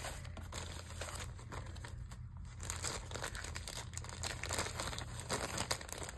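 Plastic poly mailer bag crinkling and crackling as it is handled and tugged at to get it open, busier in the second half.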